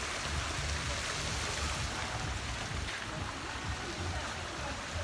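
Steady rushing of sea surf, with wind on the microphone rumbling unevenly underneath.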